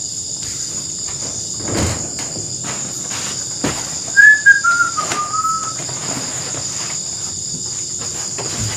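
Steady chorus of night insects, crickets ringing high, with a few thumps of footsteps on a wooden plank floor and, about four seconds in, a short loud squeak that falls in pitch.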